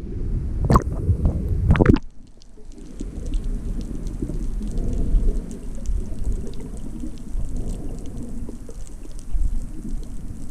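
Underwater sound picked up by a diving camera: a low rumble of water moving against it. For the first two seconds it is louder, with several knocks. After that a steady rumble carries faint, scattered crackling clicks.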